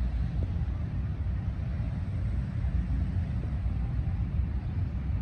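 Wind buffeting the microphone: a steady low rumble that wavers in strength.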